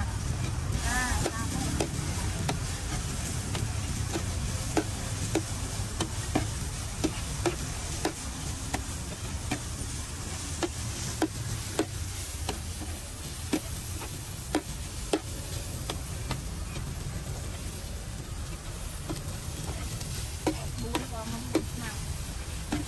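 Metal spatula scraping and clinking against a large flat steel griddle in regular strokes, roughly one or two a second, over steady sizzling as short noodles with bean sprouts and chives are stir-fried.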